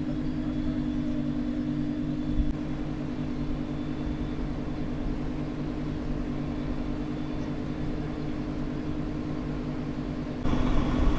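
2017 Nissan GT-R R35's 3.8-litre twin-turbo V6 idling steadily through its straight-piped Levella exhaust. Near the end the idle suddenly gets louder.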